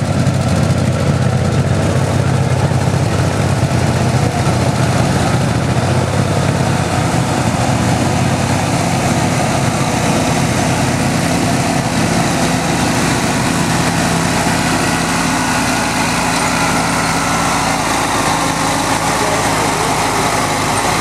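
Garden pulling tractor's small engine running hard and steadily as it drags a weight sled down the track.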